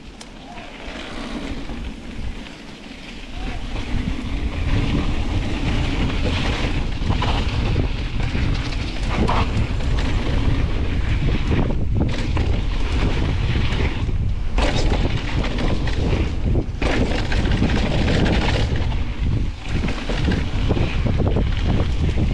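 Wind buffeting the microphone over the rumble and rattle of a mountain bike rolling down a dirt trail, getting much louder about three and a half seconds in as speed picks up.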